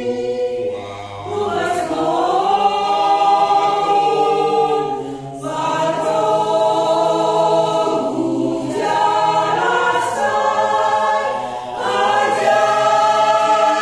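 Small mixed choir of men and women singing together in harmony, holding long notes, with brief breaks between phrases.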